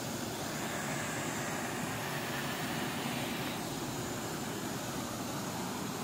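Waterfall pouring into a rock pool: a steady rush of falling water with no change in level.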